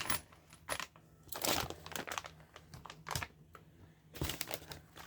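Packing material crinkling and rustling in irregular bursts as items are unwrapped and lifted out of a box, the longest stretch about a second and a half in.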